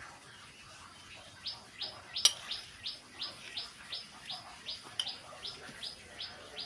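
A small bird chirping over and over, about three short high chirps a second, starting about a second and a half in. Two sharp clicks stand out, the louder one a little after two seconds in.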